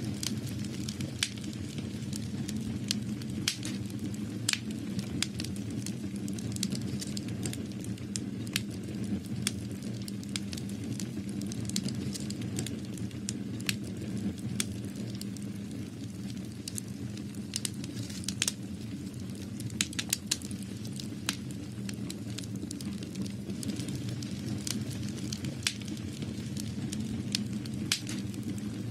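Crackling fire: irregular sharp crackles and pops over a steady low rumble, throughout.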